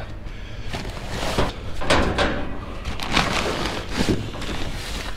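Rummaging through items in a dumpster: a string of about half a dozen irregular knocks, bumps and rustles of packages being moved, over a steady low hum.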